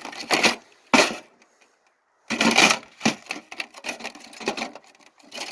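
Irregular knocks and clatter of hard parts being handled as a motherboard is fitted into a PC case: a few sharp knocks, a pause, then a longer burst of clatter with smaller knocks after it.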